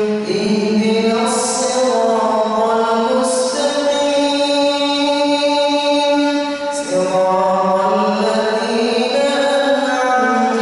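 A man's voice reciting the Quran aloud in a melodic chant, amplified through a microphone: long held notes that bend and glide in pitch, with a new phrase starting twice.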